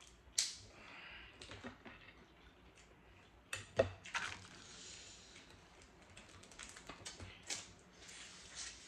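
Seafood shells being cracked and picked apart by hand while eating: an irregular scatter of sharp cracks and clicks, the loudest a little after the start and around three and a half seconds in, with softer crackling between.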